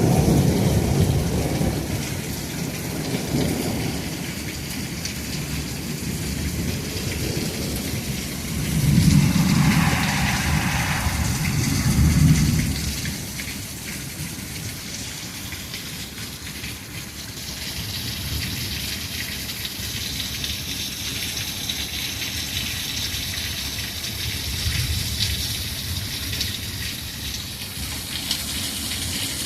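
Heavy thunderstorm rain pouring steadily, with rolling thunder: a rumble fading over the first few seconds, two louder peals about nine and twelve seconds in, and a fainter one near the end.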